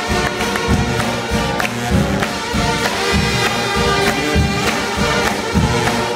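Live church music from a band, with a strong steady bass beat and regular percussion hits under pitched instruments, loud and echoing through the sanctuary.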